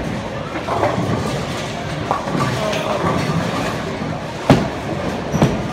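Bowling alley ambience: background chatter over a steady rumble, with a sharp knock about four and a half seconds in and a smaller one just after.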